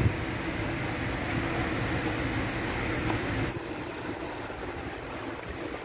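Steady mechanical running noise with a low hum, a thump right at the start, and a sudden drop in level about three and a half seconds in.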